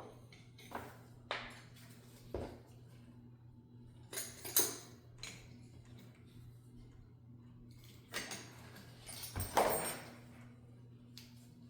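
Metal tools and parts clinking and knocking as a wrench is worked on a backhoe's hydraulic control valve assembly. The knocks come in scattered bursts, loudest near the end, over a steady low hum.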